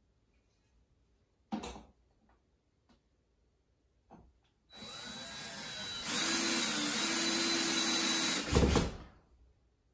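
Power drill driving a screw into a window-blind mounting bracket: after a couple of light knocks the motor starts slowly, speeds up about a second later and runs steadily for about two and a half seconds, then a short clunk as it stops.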